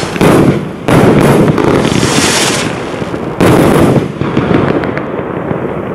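144-shot fireworks battery (cake) firing: loud shots and bursts near the start, just under a second in and again about three and a half seconds in, with hissing between them, then fading away toward the end.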